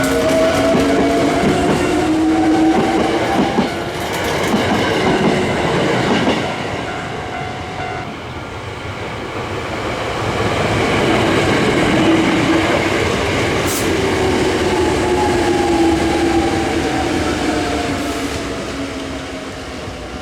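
Hankyu electric train running, its motor whine rising in pitch over the first few seconds and falling in pitch over the second half, with wheels clattering on the rails.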